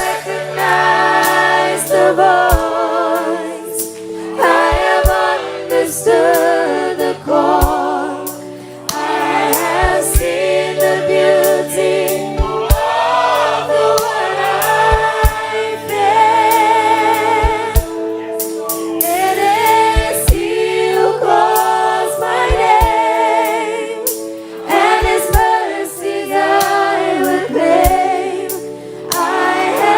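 A group of women singing a gospel song in harmony, with long held notes that waver with vibrato, over steady lower sustained tones.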